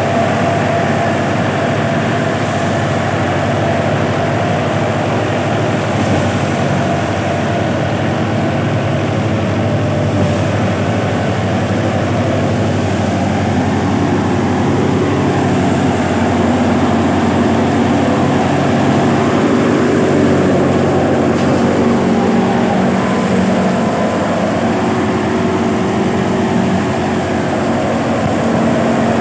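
Fiat tractor's diesel engine running steadily.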